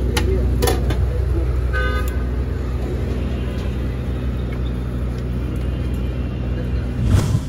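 Road traffic: a steady low rumble of vehicle engines, with a short vehicle horn toot about two seconds in.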